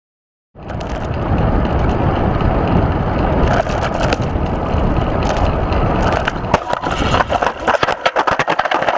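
Loud rumbling vehicle noise that starts abruptly. In the last few seconds it breaks into a rapid string of sharp cracks and crunches, like a vehicle crash with breaking parts.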